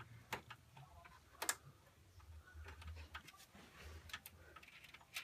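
A few sharp, separate metal clicks and taps as a small screw and the graphics card's bracket are handled at a PC case's expansion-slot bracket, over a faint low hum.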